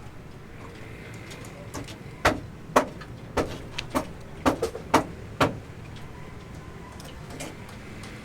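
A run of about eight sharp knocks, roughly two a second, over a steady low rumble.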